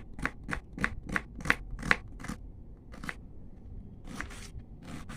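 A knife cutting a tomato into small pieces on a chopping board. A quick run of about eight cutting strokes, roughly three a second, is followed by a few slower, spaced-out cuts.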